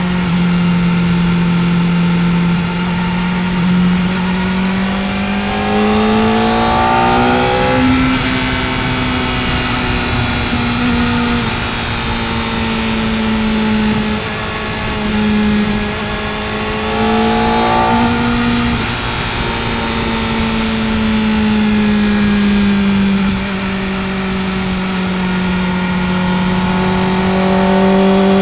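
Kawasaki Ninja ZX-4R's inline-four engine under way, its pitch climbing steadily twice and falling back sharply about eight and nineteen seconds in, then holding nearly steady and rising a little near the end.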